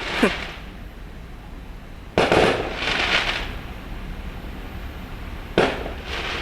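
Fireworks going off: three sharp bangs, one just after the start, one about two seconds in and one near the end. The middle bang trails into about a second of crackling.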